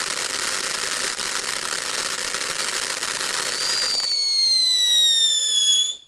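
Aurora Borealis firework fountain spraying sparks with a dense, steady hissing crackle. About four seconds in the hiss gives way to a loud whistle that falls slowly in pitch, then cuts off suddenly.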